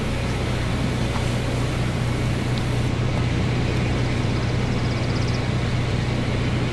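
A steady low hum under an even hiss, unchanging throughout, with no clear putter strike. A faint, rapid high ticking sounds briefly about two-thirds of the way in.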